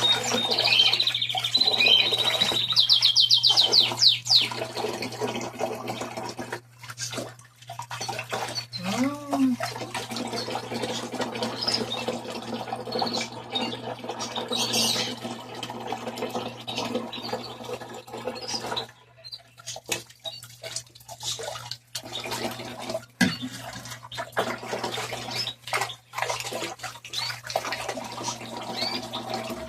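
Small birds chirping and squawking, with a fast trill in the first few seconds, over intermittent water splashing and scrubbing from a washing machine being cleaned by hand, and a steady low hum underneath.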